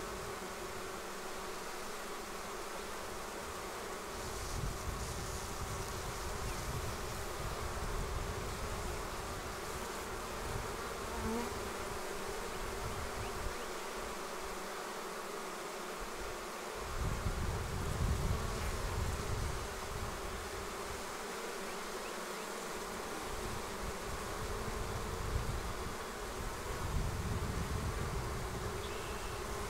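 A swarm of honeybees buzzing steadily as they fly about and move into a nucleus hive. An uneven low rumble swells and fades several times underneath.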